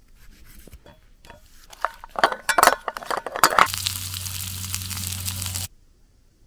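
Chorizo slices dropping onto chopped onion in an enamel camping pan, with a wooden spoon clinking against the pan, then about two seconds of frying sizzle that cuts off suddenly near the end.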